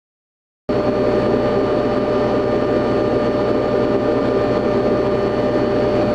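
Bench buffing machine running steadily, its motor and spinning buffing wheel making a constant hum with a few held tones over a dense hiss. The sound cuts in abruptly just under a second in.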